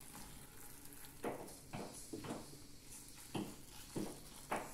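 Water poured from a kettle into a metal pressure cooker of sliced sausage, a faint steady trickle broken by several short knocks.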